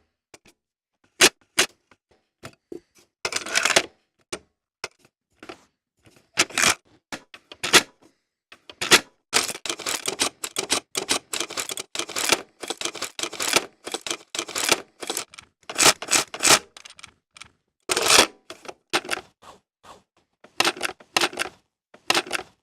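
Cassette tape eject mechanism: a string of sharp plastic clicks and clacks separated by short pauses, coming thick and fast through the middle.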